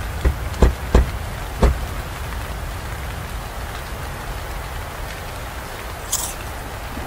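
Steady heavy rain, with four sharp hits in the first couple of seconds and a brief high swish near the end.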